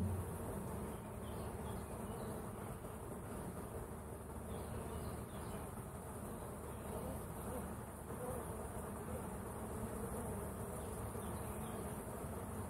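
Honeybees humming inside an opened hive box: a little hum, steady throughout. The beekeeper wonders whether the box is being robbed.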